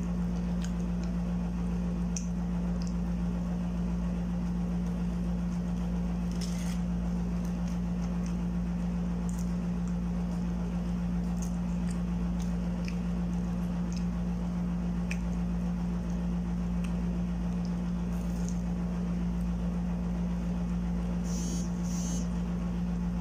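A steady low hum, with faint scattered clicks and soft squishy chewing of someone eating a hash brown with her mouth closed.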